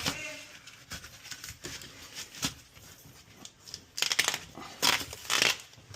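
Hands working on equipment: scattered clicks and knocks with short bursts of rustling, scraping noise, the loudest cluster about four to five and a half seconds in.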